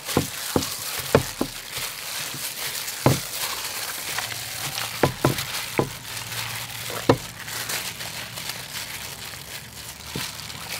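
Raw pork chunks being mixed by a plastic-gloved hand in marinade inside an aluminium pot: wet squishing and rustling of the glove, with several sharp knocks at uneven intervals.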